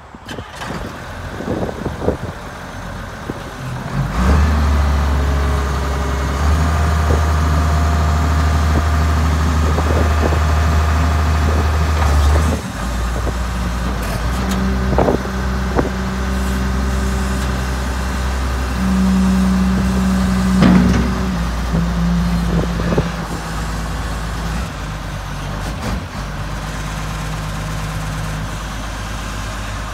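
Case 721B wheel loader's diesel engine running, revving up about four seconds in and holding there until about halfway, then dropping back. Its note then shifts up and down as the loader arm works the bucket, with a few knocks.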